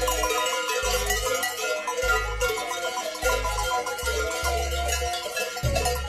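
Background music with a low bass note pulsing about once a second under bright, struck bell-like notes.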